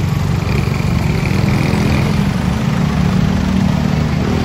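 A motor vehicle's engine running close by in street traffic, a steady low hum.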